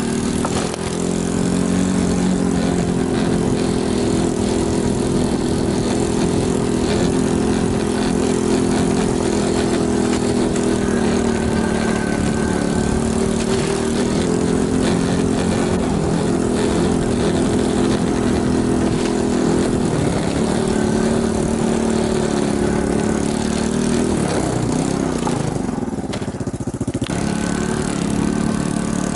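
Small vehicle engine running at a steady, nearly unchanging pitch, as when ridden at an even speed. The engine note dips briefly near the end, then picks up again.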